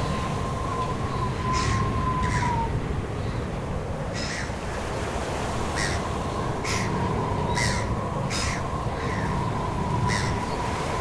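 Birds giving short, harsh calls again and again over a steady rush of wind and surf, with a thin, steady whistling tone near the start and again from about halfway on.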